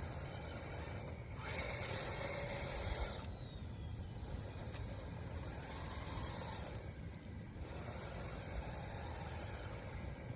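Lawn sprinkler spray sweeping across, with a loud hiss lasting about two seconds near the start and fainter hissing passes later.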